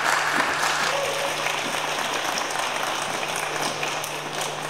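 Audience applauding in a tent, the clapping dying away near the end.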